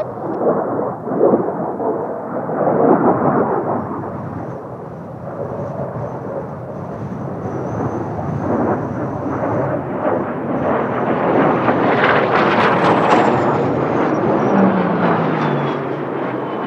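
Kawasaki T-4 jet trainers flying past: a loud rumbling jet roar that swells and fades, with a high turbine whine sliding down in pitch in the last few seconds as they pass. Gusty wind buffets the microphone.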